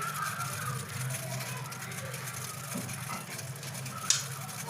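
Steady low hum with one sharp click about four seconds in.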